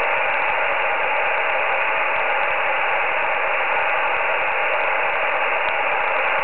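Shortwave band noise from an Icom IC-R75 communications receiver: an even, steady hiss confined to the narrow voice passband, with a faint steady tone in it. It is the empty channel between transmissions, the receiver's gain lifting the noise to full volume while no station is on the frequency.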